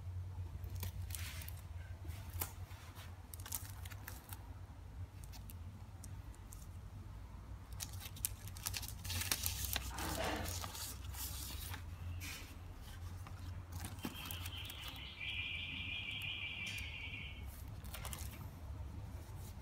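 Paper documents handled by gloved hands: scattered rustling and light clicks, with the loudest rustle about halfway through and a high, steady hiss for a few seconds later on, over a steady low hum.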